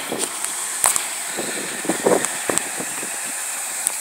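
Outdoor street ambience: a steady hiss with a few short, soft knocks and scuffs scattered through it.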